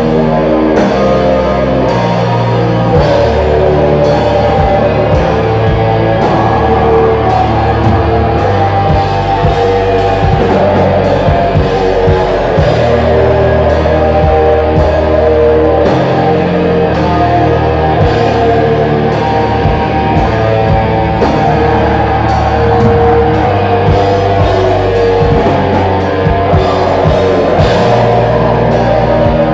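Metal band playing live and loud: distorted electric guitars and bass holding long, slow low chords over a drum kit, with cymbals struck at a regular pace.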